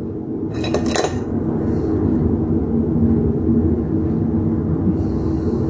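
Steady low rumble of machinery working outside, where something broken is being repaired. A brief metal clink comes a little under a second in.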